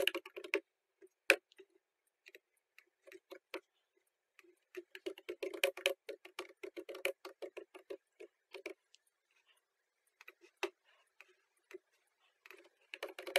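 Typing on a computer keyboard in quick runs of key clicks, a long run around the middle and another near the end, with scattered single clicks between, as from a mouse.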